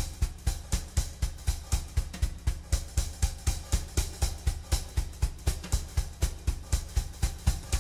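Outro music with a steady drum beat, about four beats a second.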